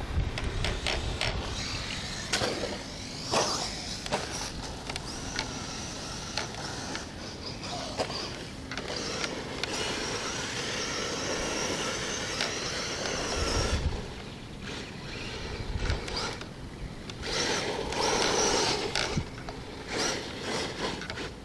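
Team Associated T4 RC stadium truck with a brushless electric motor driving on a dirt track: a high motor whine that rises and falls with the throttle, longest about halfway through, with tyres scrabbling in loose dirt and scattered knocks as it jumps and lands.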